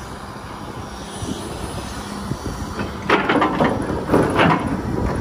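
Kobelco SK250 crawler excavator's diesel engine running with a steady low hum, then about three seconds in the steel bucket scrapes and clatters into rocky soil in two rough bursts about a second apart.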